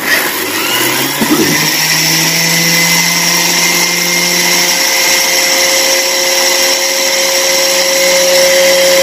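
Sujata mixer grinder's motor starting up and running steadily, grinding dry rice, coarse wheat flour and semolina in its steel jar into a coarse powder. Its pitch rises over the first second as it gets up to speed.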